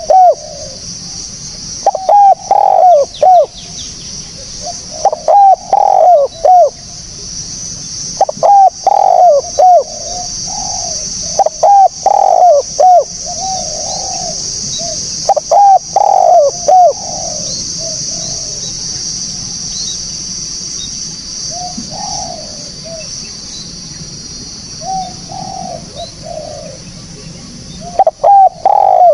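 Spotted dove cooing: phrases of several quick, low coos repeated every few seconds. The calls grow fainter and sparser past the middle and come back strongly near the end, over a steady high hiss.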